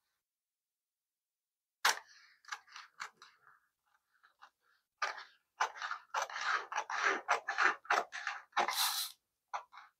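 Scissors cutting a sheet of static-cling privacy window film: a sharp snip about two seconds in, a few scattered small cuts, then a quick run of snips from about five seconds in, the loudest just before the end.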